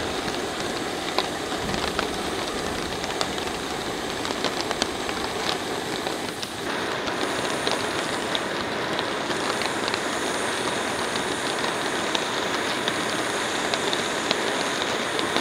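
Heavy rain falling on a tarp shelter and the surrounding forest: a steady hiss dotted with scattered sharp ticks of drops. About six and a half seconds in the sound turns slightly louder and fuller.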